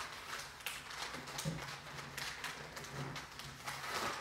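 Large sheets of paper rustling and scraping as hands slide over them, smoothing and pressing down a long fold, in a run of short swishes.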